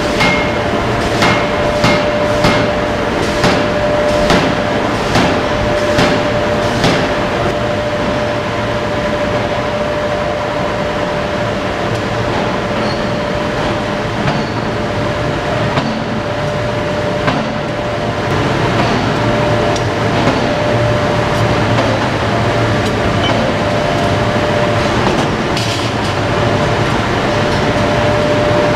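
Forging hammer blows on hot metal, repeating one to two times a second for the first seven seconds or so. Then steady forge-shop machinery rumble with a constant hum and an occasional single knock.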